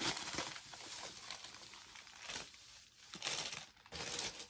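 White tissue paper packing crinkling and rustling as it is pulled out of a new leather tote bag. The rustling comes in several short bursts.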